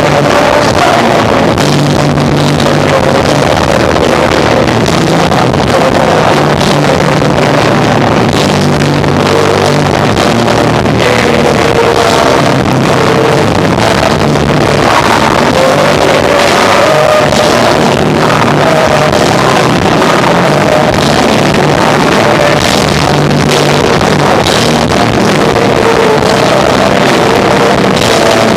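Live rock trio of electric guitar, bass and drums playing a song without a break, recorded very loud and overloaded, so the sound is distorted and muddy.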